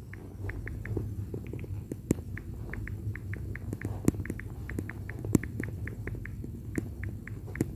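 Typing on a smartphone's touchscreen keyboard: a quick, uneven run of short, light key clicks, about three or four a second, with a few sharper taps, over a low steady hum.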